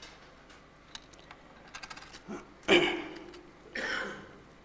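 Paper handling at a lectern close to its microphone: a few light clicks and taps, then two short rustles of paper sheets, the first the loudest.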